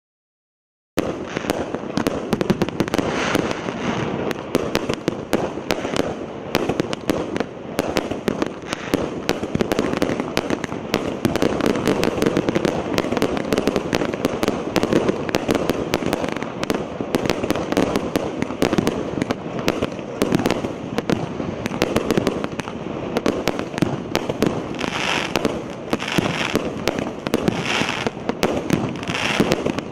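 A 250-shot, 1-inch consumer fireworks cake firing: a rapid, unbroken volley of mortar launches and star bursts that starts abruptly about a second in. A few brief higher-pitched bursts stand out near the end.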